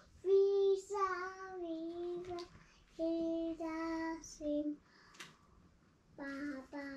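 A child singing in short phrases of held notes, with brief pauses between them.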